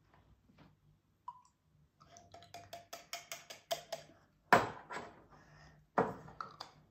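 A cocktail shaker and juice containers being handled: a run of light clicks and taps, then two sharper knocks about a second and a half apart.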